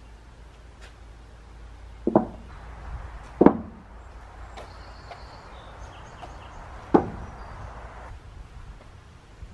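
Timber corner braces being set down on a concrete slab: three sharp wooden knocks, about two seconds in, a second and a half later (the loudest), and again about seven seconds in.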